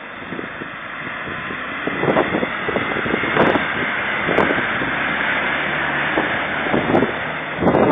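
Land Rover Discovery driving slowly through a deep water-filled rut, its engine running under load while water splashes and surges around the wheels. The sound grows louder about two seconds in as it comes close, with some wind on the microphone.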